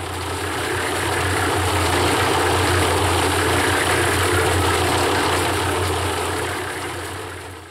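Cement mixer running, its rotating drum churning wet 80-pound concrete mix: a steady low motor hum under the continuous grinding slosh of the tumbling mix. It fades in at the start and fades out near the end.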